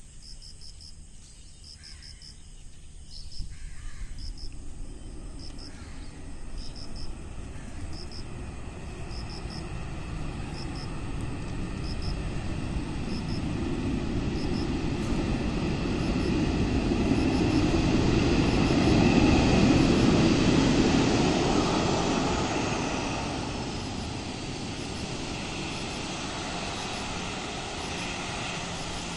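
Boeing 737-800's CFM56 turbofan jet engines heard from outside the airfield as the airliner lands and rolls out. A rushing jet noise builds to its loudest about two-thirds of the way through, then eases off, with a high whine falling in pitch as it fades.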